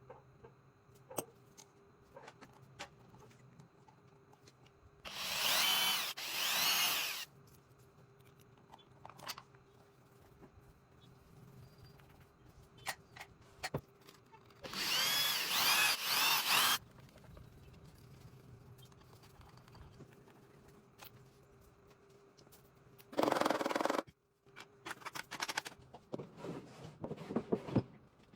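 Handheld power drill running in several short bursts of one to two seconds, its motor pitch rising and falling within each run. Light knocks and scraping are heard between the runs.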